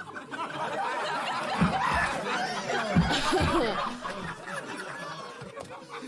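Live audience laughing together, swelling about a second in and dying down toward the end.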